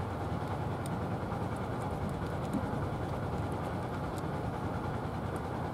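A steady low rumble, with faint, crisp clicks scattered through it from a cat crunching dry kibble.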